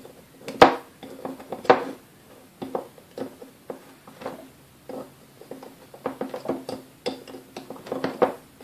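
Steel needle-nose pliers clinking and scraping against parts inside the metal gearbox housing of a 1934 Sunbeam Mixmaster Model 1 mixer. Irregular sharp clicks, each ringing briefly, with the two loudest in the first two seconds.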